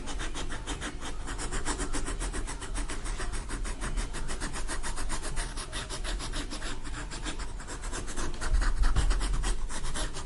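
Drawing or colouring on paper: a pencil or marker rubbing rapidly back and forth, about five strokes a second.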